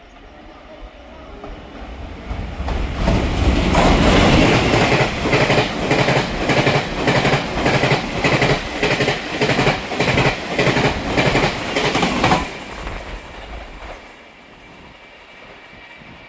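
Push-pull Tze-Chiang express train with E1000 power cars passing through at speed, its wheels clacking over the rail joints' fishplates in a fast, even rhythm. It builds up over the first few seconds, stays loud for about nine seconds, then dies away near the end.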